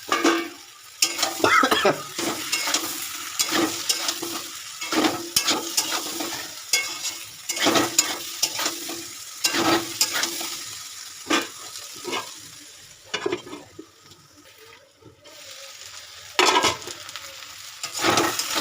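A thick vegetable curry being stirred and fried in a pan: irregular stirring scrapes and knocks against the pan over a steady sizzle of hot oil, with a quieter stretch of a few seconds near the end. This is the kasha stage, as fried pointed gourd and soya chunks are sautéed in the spice paste until browned.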